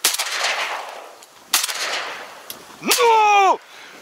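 Two shotgun blasts about a second and a half apart, each followed by a rolling echo that dies away over about a second. Near the end, a short loud shout that rises and then falls in pitch.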